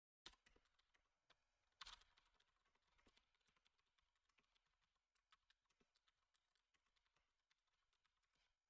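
Faint typing on a computer keyboard: a quick, irregular run of key clicks, with the two loudest near the start.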